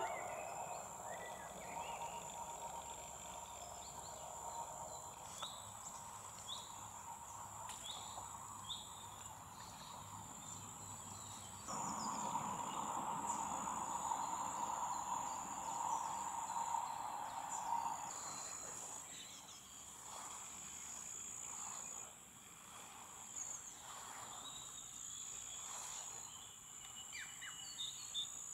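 Pond ambience with green frogs (Pelophylax) calling together for about six seconds near the middle, starting suddenly and fading out, over scattered short bird chirps and a steady high-pitched whine.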